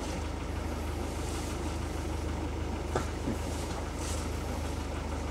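Motorboat engine idling steadily with a low hum. A single click comes about three seconds in.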